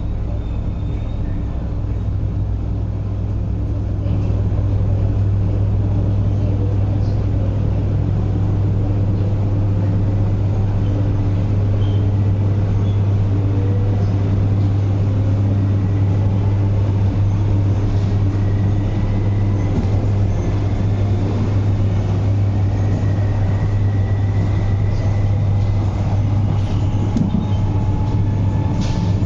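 Interior of an MTR MLR electric train, a Metro Cammell car, pulling away: a steady low hum with a faint whine that climbs slowly in pitch as the train gains speed.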